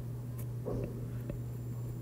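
A stylus taps lightly on a tablet's glass screen while writing, making a few faint ticks, over a steady low electrical hum.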